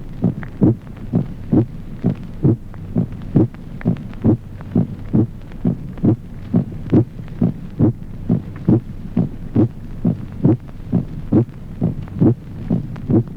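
Heart sounds heard through a stethoscope: a steady rhythm of paired beats, the first and second heart sounds, about one pair a second. The second sound has a resonant, musical timbre, the ringing aortic second sound of an aortic aneurysm.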